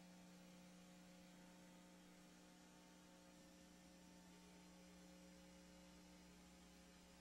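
Near silence: a faint, steady electrical hum over low hiss.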